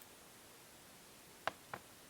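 Two short, sharp clicks about a quarter second apart, about one and a half seconds in, from handling a table lighter and its removable insert, over quiet room tone.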